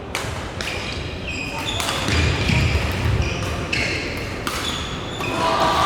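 Racket-sport play in a hall: irregular sharp hits, several strikes a second at times, each with a short ringing echo.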